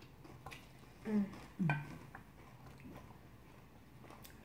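Wooden chopsticks picking at kimchi in a ceramic bowl, giving a few light clicks against the dish. Two short hummed voice sounds come about a second in.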